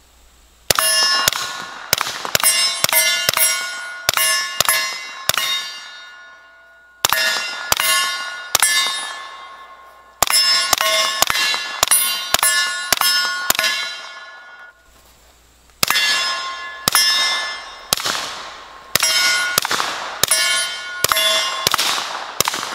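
Suppressed CZ Scorpion Micro firing subsonic 9mm in four fast strings of shots, each bullet striking steel plate targets that ring with a bell-like clang. The steel strikes are louder than the suppressed gun itself.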